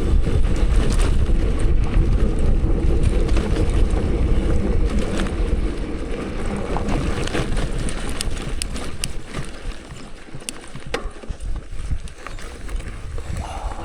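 Wind buffeting the microphone of a riding cyclist, a deep rumble with scattered small clicks and rattles; the rumble eases about halfway through.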